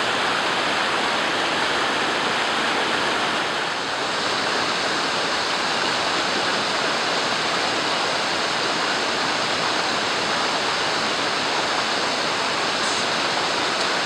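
Steady rushing of flowing stream water, an even, unbroken noise.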